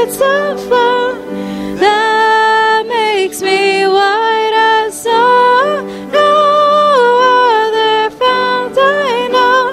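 A hymn being sung, voices holding long notes with short breaks between phrases over a steady accompaniment.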